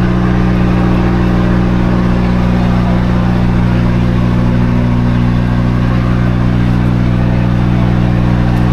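A large engine idling, a low, even drone that holds steady throughout.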